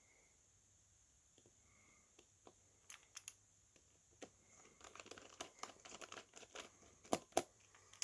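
Crinkling and crackling of thin plastic or film being handled, with scattered small clicks. It turns denser about five seconds in, with two sharper clicks just after seven seconds.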